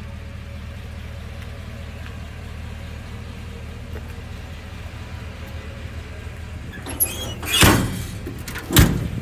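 Steady low rumble, then from about seven seconds in a run of loud metal clunks and bangs, two of them the loudest, as the steel compartment doors of a truck's service body are swung shut and latched.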